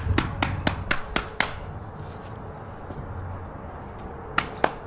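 Quick string of sharp taps in the first second and a half and two more near the end: concrete stamp mats being tamped into a freshly poured patio.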